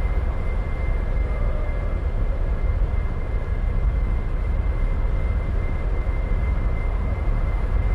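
Aircraft engine running steadily: a deep rumble with a constant high whine over it.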